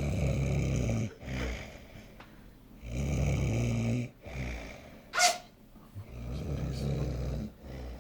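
A sleeping man snoring: three long snores about three seconds apart, each followed by a shorter, softer breath out. There is a brief high squeak rising in pitch about five seconds in.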